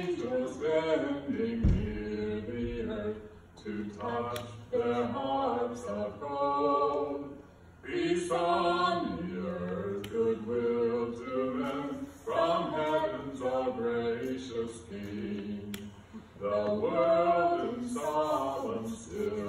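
Voices singing a song without accompaniment, in phrases of a few seconds with short breaks between them.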